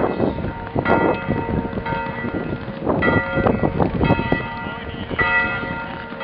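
Grote Kerk church bell ringing, struck about once a second, each stroke still ringing as the next one comes, over a rough background noise.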